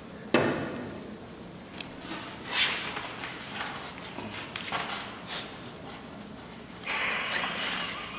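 A sharp wooden thump about a third of a second in, followed by softer knocks and rustling as wooden props (a box shield and a long pole) are handled, with a longer stretch of rustling near the end.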